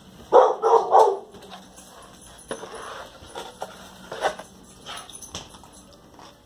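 Pet dog barking, three quick barks in the first second, then quieter.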